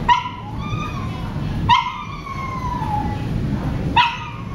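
A dog yelping three times, each cry starting sharply and sliding down in pitch over about a second, the first two about a second and a half apart and the third near the end, over a steady low background rumble.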